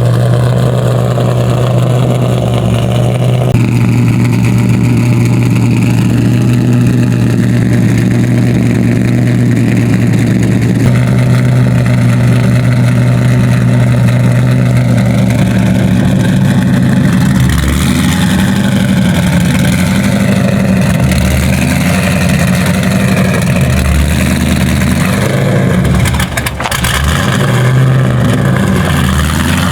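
Car engine running at idle with a steady low note, its pitch wavering a little in the second half.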